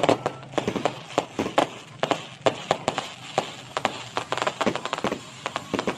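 Fireworks going off overhead in a rapid, irregular string of bangs, pops and crackles, loudest at the very start.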